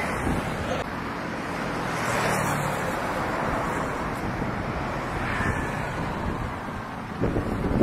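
Road traffic passing: cars, motorcycles and a truck driving by. Wind buffets the microphone near the end.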